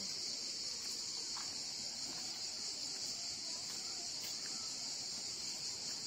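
Cicadas chirring in a steady, high-pitched chorus without a break.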